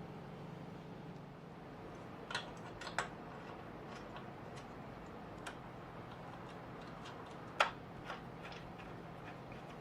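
Scattered light clicks and taps of hardware being handled and fitted while accessories are mounted on a router table, with a sharper knock about seven and a half seconds in, over a steady low hum.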